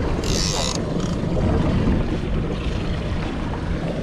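Boat engine running at slow trolling speed with a steady low rumble and wind on the microphone, and a short hiss about half a second in.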